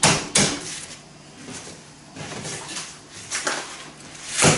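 Plastic vacuum-sealed bags of ground meat being handled on a kitchen counter: a few sharp crinkles and knocks, the loudest just before the end, with quieter rustling between.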